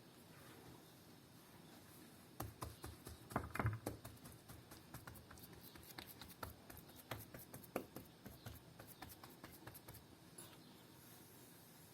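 Faint, irregular taps and clicks starting about two seconds in, loudest soon after and thinning out toward the end: hands patting and shaping semolina harcha dough.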